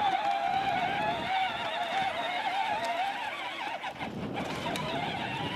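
Electric motor and gearbox of a John Deere Gator HPX ride-on toy whining as it drives along, the pitch wavering up and down. The whine drops out briefly about four seconds in, then picks up again.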